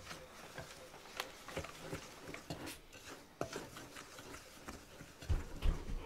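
Wooden spatula stirring a damp, sandy mixture of salt and dish soap in a glass bowl: irregular gritty scrapes and light clicks against the glass, with a few low thumps near the end.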